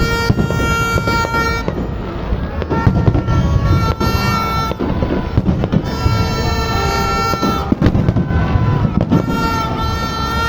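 Fireworks banging and crackling under loud music that has long, held, reedy notes repeating every few seconds.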